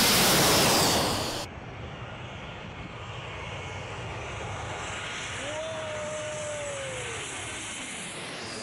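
Jet airliners passing low overhead on landing approach: a loud rushing roar that cuts off abruptly about a second and a half in, then a quieter, steady jet roar from another approaching airliner, with an engine whine that falls in pitch near the end as it comes over.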